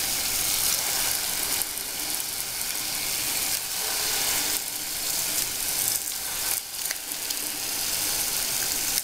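Bolinho de chuva batter deep-frying in hot oil: a steady sizzle.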